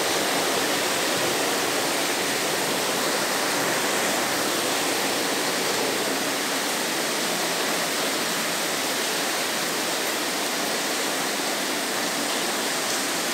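Steady, even rush of heavy rain falling.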